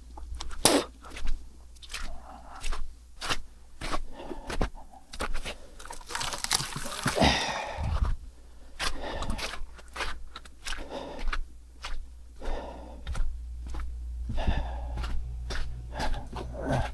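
Irregular crunching and knocking, about two sharp sounds a second, over a steady low hum.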